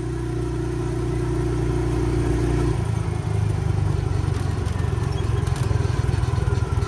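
Small gasoline engine of an off-road recreational vehicle running with a steady pitch. About three seconds in, the sound turns rougher and choppier and grows a little louder.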